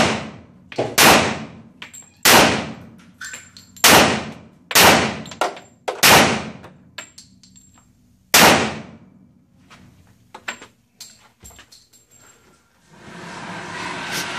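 Seven shots from a .45-calibre Glock pistol at an indoor range, each a sharp crack with a ringing echo, the first six a second or so apart and the last after a pause of about two and a half seconds. A few light clicks follow, then a rising rustle of handling noise near the end.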